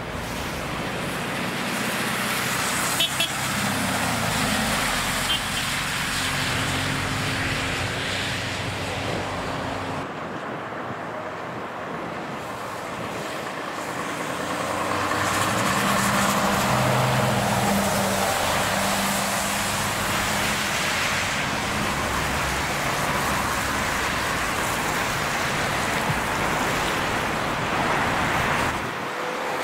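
Motorway traffic, trucks and cars passing with tyre noise and engine drone. It grows loudest about halfway through as a heavy vehicle goes by.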